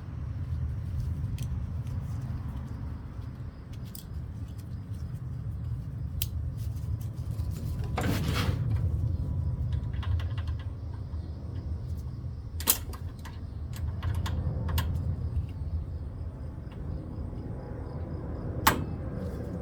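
Scattered metallic clicks and clinks of small parts and hand tools being handled, over a steady low hum. There are sharper knocks about eight seconds in, around twelve seconds and near the end.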